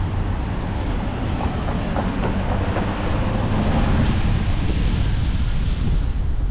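Steady low rumble of city street traffic, with a few faint clicks about two seconds in.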